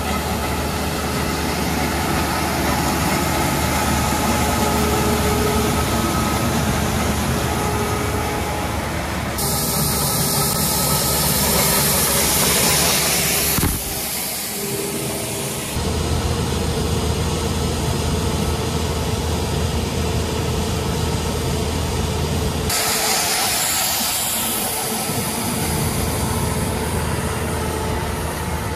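Hofmann H26 road-marking machine running steadily with a low engine hum while it lays a thermoplastic line. Loud hissing from the marking unit comes in twice, about ten seconds in and again at about twenty-three seconds, and the sound changes abruptly at each cut.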